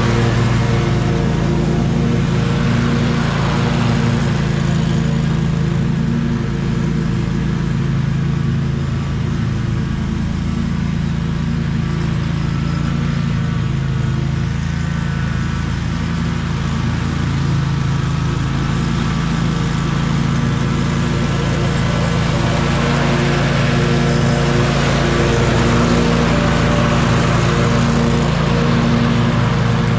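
Scag 36-inch stand-on mower with a mulching kit, its engine running steadily at mowing speed as the blades cut grass. It grows somewhat fainter through the middle as the mower moves away across the lawn, and louder again near the end as it comes back.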